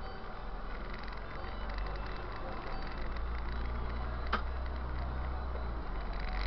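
Steady low engine and road rumble heard from inside a city bus's cab while it drives, with one sharp click about four seconds in.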